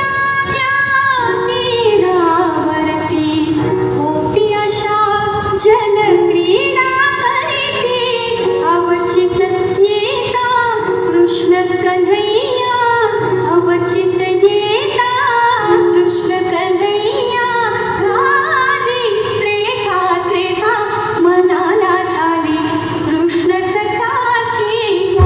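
A high voice singing a long, ornamented melody full of sliding pitch bends, with a few sharp percussive taps.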